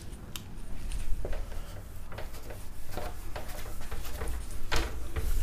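Whiteboard being wiped clean with a duster: a series of short, irregular rubbing strokes over a steady low hum.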